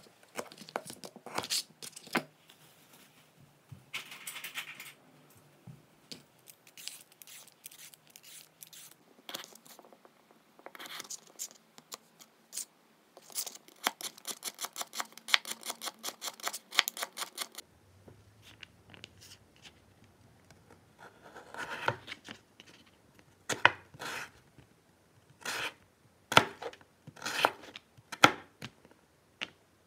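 Kitchen knife slicing carrots on a cutting board: sharp knocks of the blade meeting the board, in loose groups and, about halfway through, a quick even run of about six cuts a second.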